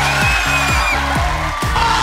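Background music with a steady electronic kick-drum beat, about two beats a second.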